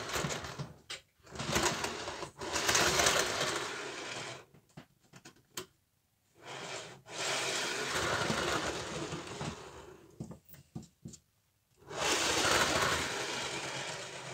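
OO gauge model train running over freshly laid track and pointwork: a small motor whirring and wheels rumbling on the rails in several spells, stopping and starting again with short silent pauses between them.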